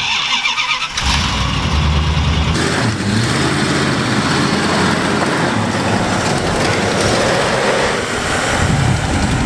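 Engine of a 1993 Dodge B350 van running, loud and close, its note shifting a few times.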